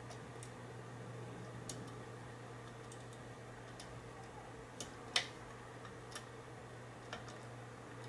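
Small irregular metallic clicks of a hook pick working the pins of a 4-pin Mul-T-Lock Interactive lock core under tension, the sharpest about five seconds in, over a steady low hum.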